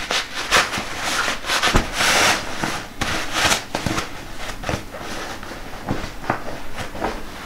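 Fabric of a Bears Rock FX-503W envelope-type sleeping bag rustling and crackling as it is crammed into its storage sack. A dense run of short crackles and rustles, loudest about two seconds in.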